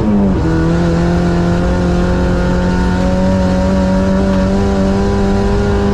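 Ice-racing car's engine running hard at steady high revs, heard from inside the car. The engine note drops in pitch once just after the start, then holds level.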